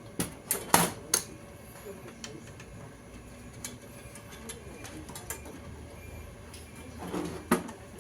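Light clicks and knocks of wires and small metal parts being handled at a power supply's terminal block, a cluster in the first second and another near the end.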